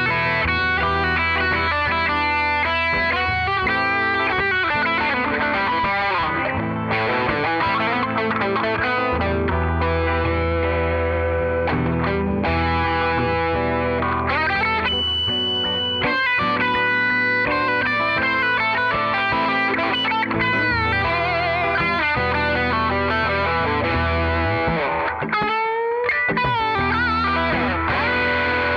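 Epiphone ES-339 semi-hollow electric guitar played through an amp: a flowing run of notes and chords, with bent notes around the last few seconds, over a held low bass.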